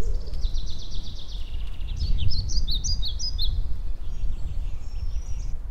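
Small songbird singing outdoors: a fast high trill, then a run of short sharp chirps, over a steady low rumble of background noise.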